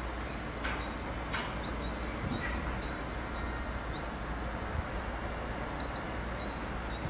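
Small birds chirping in short high calls over a steady low rumble, with two faint knocks in the first second and a half.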